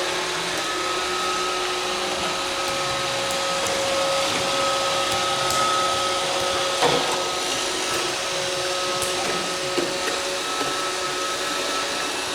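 Roomba robot vacuum running: a steady whir of its motor and brushes with a few constant tones. There is a brief knock about seven seconds in.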